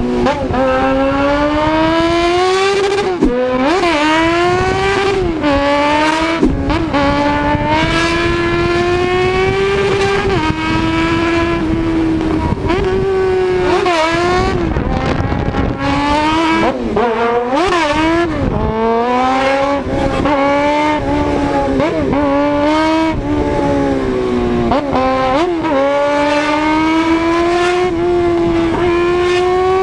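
High-revving engine through a loud exhaust, held at a high, fairly steady pitch, with short dips and quick recoveries every few seconds.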